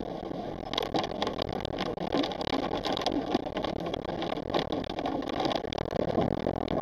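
Vehicle driving on a wet road, heard from inside the cab: steady engine and tyre noise with many irregular small ticks.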